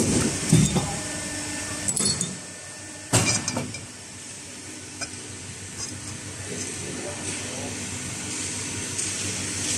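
Hydraulic pipe notching press: metal clatter as the steel pipe goes into the die, then one sharp crack a little after three seconds as the punch shears the 45-degree notch. A steady machine hum runs under it and carries on after the cut.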